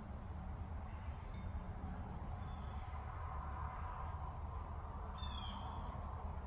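Birds outdoors: a thin, high chirp repeating about every two-thirds of a second, and a louder burst of quick sweeping call notes about five seconds in, over a low steady rumble.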